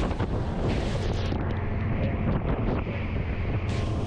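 Jeanneau DB/37 motor boat running at about 25 knots in a rough sea: the steady drone of its twin Volvo Penta D4 diesel engines under the rush of water and spray off the hull, with wind on the microphone. A louder hiss comes back near the end.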